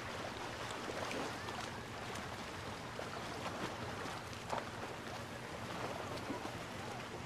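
Beach ambience: a steady wash of small Mediterranean waves with faint distant voices and a few scattered light clicks.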